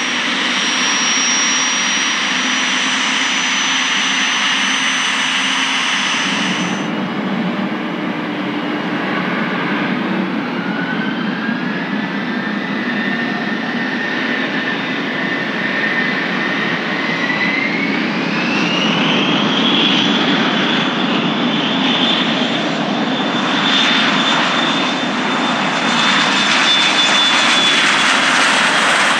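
Bombardier Challenger 300's twin Honeywell HTF7000 turbofans. First comes a steady high whine while taxiing. After a sudden change about six seconds in, the engine whine rises in pitch in two steps as the engines spool up to takeoff thrust. The roar builds near the end as the jet starts its takeoff roll.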